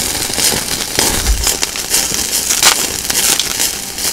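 Meat sizzling on a wire grill over open flames, with fat spitting and crackling in many short sharp pops.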